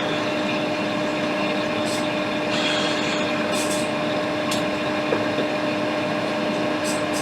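A small fan-driven blower running steadily, a constant whoosh with a low hum under it, with a few faint ticks.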